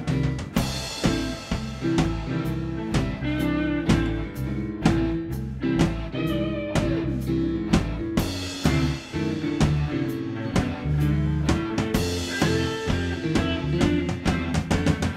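A band jamming live on drum kit, electric guitar and keyboards: an instrumental groove with steady, busy drumming.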